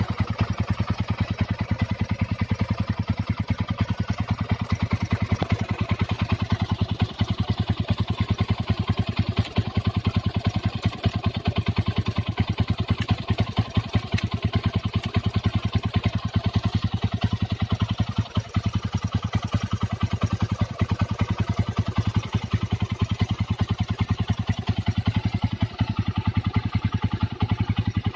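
Modified Honda GL Pro motorcycle's single-cylinder four-stroke engine idling steadily while it warms up, with an even, rapid beat of exhaust pulses.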